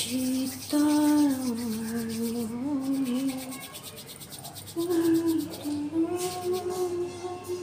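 A woman's voice humming a slow tune in two long phrases of held, gently bending notes, the second pitched higher, with a light rubbing of hands underneath.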